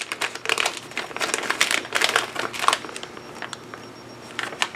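Crinkly plastic packaging wrapper being pulled and torn open by hand: dense crackling and rustling for the first three seconds or so, then quieter, with a few more crackles near the end.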